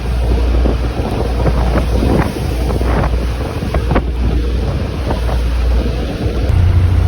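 Strong wind buffeting the microphone: a loud, low rumble with sharp crackles, growing louder near the end.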